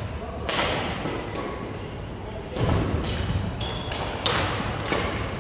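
Badminton rackets smacking a shuttlecock several times in a rally, sharp hits about a second apart, with a short sneaker squeak and footfalls on the gym floor.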